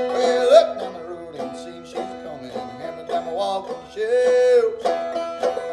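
Clawhammer banjo playing a blues tune in a steady rhythm of plucked notes, with a few notes slid upward in pitch.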